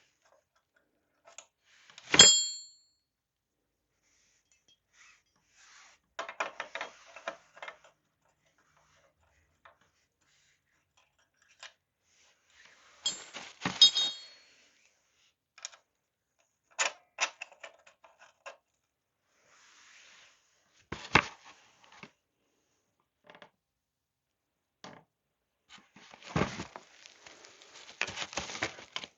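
Scattered clinks, knocks and rattles of metal tools and parts being handled in a small workshop. Two sharp metal clanks ring out, one about two seconds in and another near the middle, with bursts of rattling about six seconds in and near the end.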